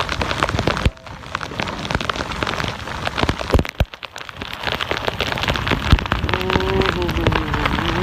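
Heavy rain pelting down, with many sharp drop hits close to the microphone; the rain eases briefly about one second and four seconds in.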